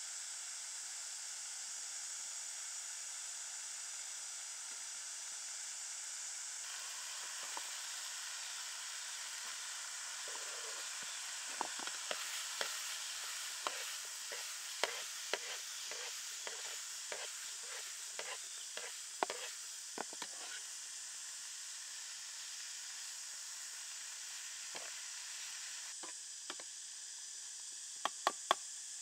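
Chicken wings and chopped vegetables sizzling in hot oil in an enamel pan. From about a third of the way in, a metal ladle strikes and scrapes the pan in a quick run of clicks for about ten seconds as the food is stir-fried, with a few more clicks near the end.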